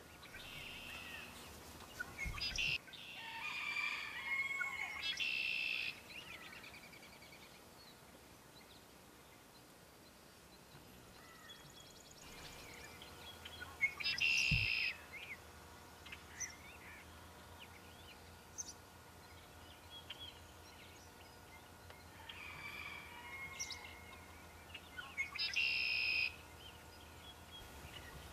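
Chickens calling in three bouts, with quieter stretches between, and two brief low thumps among the calls.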